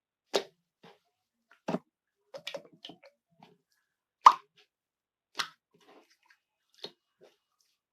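Honey slime being pressed and pulled by hand, giving separate wet pops and squelches with short silences between, the loudest pop a little past four seconds in.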